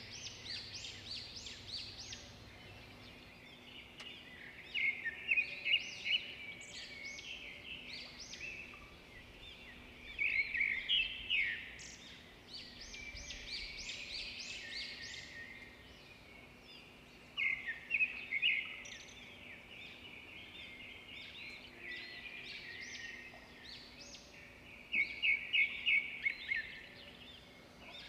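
A small bird singing short, high-pitched trilled phrases of rapid chirps, repeated every several seconds.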